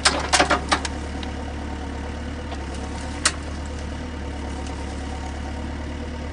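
Heavy machine's engine running steadily, with a quick run of five or six sharp knocks in the first second and one more knock about three seconds in.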